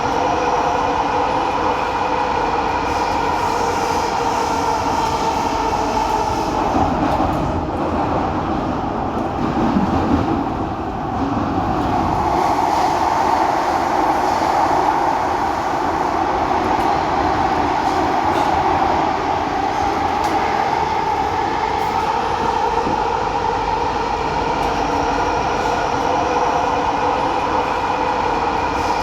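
Noisy ride on a moving train: a steady loud rumble and rattle with a persistent hum-like whine. About a third of the way in, the whine fades for a few seconds while a deeper rumble swells, then the whine returns.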